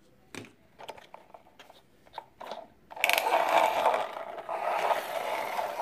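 Plastic toy bus being handled: a few light clicks of plastic parts, then about three seconds in a louder, continuous scraping and rubbing of the plastic body.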